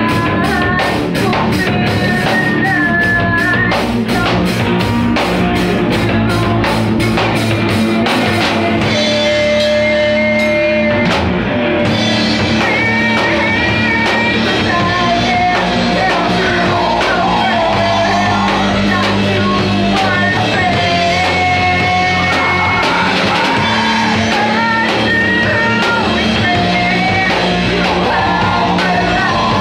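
Rock song with sung vocals over electric guitar, bass and drums. The drums and cymbals thin out about nine seconds in, and the full band comes back in about three seconds later.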